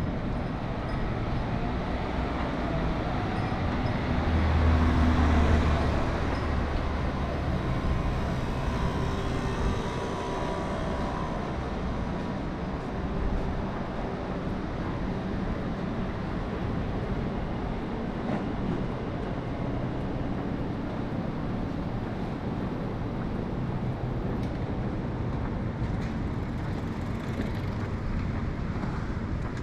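City street traffic noise, with a vehicle passing close by and swelling loudest about five seconds in.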